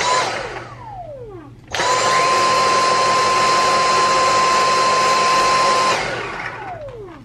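Cordless stick vacuum motor switched on for a moment and winding down with a falling whine, then run again for about four seconds with a steady high whine and air rush before switching off and spinning down.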